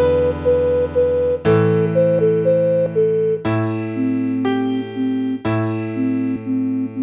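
Background music: a keyboard playing slow sustained chords with a simple melody on top, the chord changing about every two seconds.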